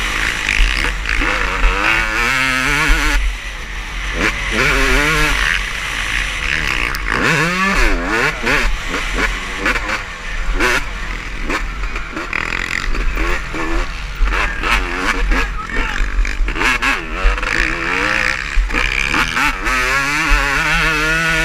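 Motocross bikes racing, their engines repeatedly revving up and dropping back as they go through the gears and accelerate out of turns.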